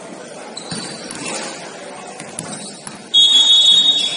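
Basketball scoreboard buzzer sounding about three seconds in: one loud, steady high-pitched tone held for about a second, over low gym noise.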